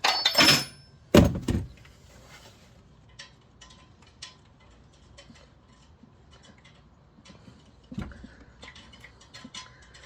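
Metal tools and parts being handled: two loud knocks in the first two seconds, then light scattered clicks and rustling, with another knock about eight seconds in.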